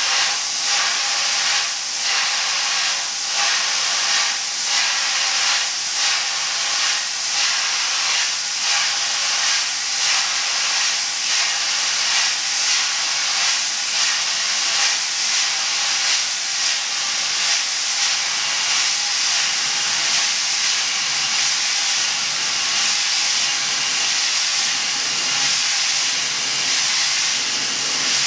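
CO2 dry-ice jet cleaner's nozzles blasting a loud, continuous hiss onto a tray of driver IC chips. The hiss pulses regularly, a little more than once a second, through the first half, then runs steadier, with a faint steady hum underneath.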